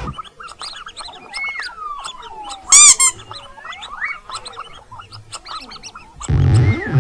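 Mouse squeak sound effects: a scatter of short high chirps and thin gliding squeals, with one loud, brief squeak just under three seconds in. About six seconds in, a louder, fuller sound with a deep low end comes in.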